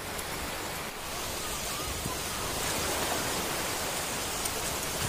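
Small waves breaking and washing up onto a sand beach: a steady rush of surf that swells a little about a second in.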